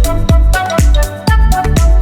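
Background electronic music: a pitch-dropping kick drum about twice a second under a steady melodic line, the beat dropping out briefly just past the middle.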